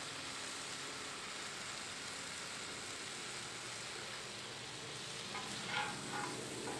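Steak sizzling steadily on a Blackstone flat-top griddle, with a few brief sharper sounds between about five and six and a half seconds in.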